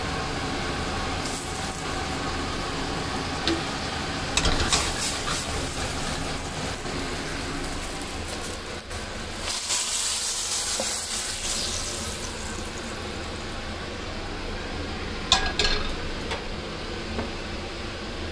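Onions sizzling and simmering in a stainless steel skillet as wine is poured in. Then the hot onions and liquid are poured from the skillet into a slow cooker onto a seared chuck roast, with a hiss about halfway through and sharp metal clatters of the pan a few seconds in and near the end.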